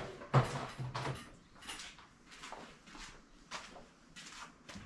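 Scattered knocks, clicks and light scrapes from an old wooden cabinet being handled and examined, with its doors and panes moved and touched.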